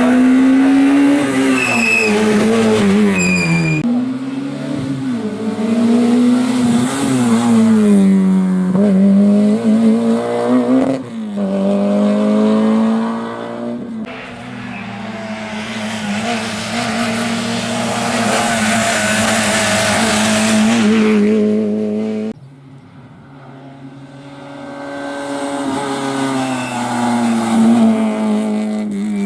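Rally car engine revving hard, its pitch climbing and dropping with gear changes and lifts as the car goes by, in several separate passes. Two short high squeals come a couple of seconds in.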